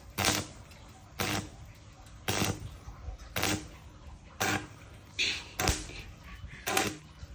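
Sharp knocks repeating at an even pace, about once a second, seven in all.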